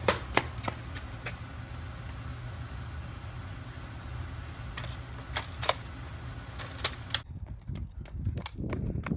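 Sharp plastic clicks and knocks from a Nerf foam-dart blaster being handled and loaded, a few at the start and a few more about five to seven seconds in, over a steady low hum. After a break about seven seconds in, footsteps of a child running on concrete.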